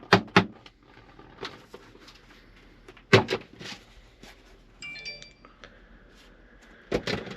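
Sharp clicks and knocks of hard objects being handled, in quick groups of two or three, with a brief high metallic ring about five seconds in.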